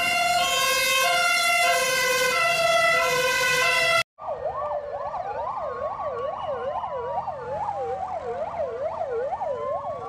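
A German fire engine's two-tone siren alternates steadily between a high and a low note. After a sudden cut about four seconds in, fire-engine sirens take over: a fast yelp sweeps up and down about twice a second, with a slower rising and falling wail laid over it.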